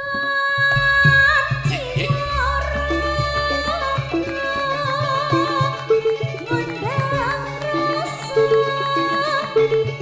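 Langgam Sragenan music from an orkes melayu band: a melody line with held, wavering notes over bass and a steady drum rhythm.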